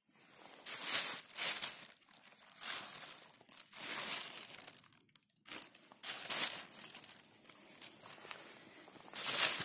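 Thin plastic carrier bag crinkling in irregular bursts as a hand rummages among the mushrooms inside it. The bursts are loudest about a second in and near the end.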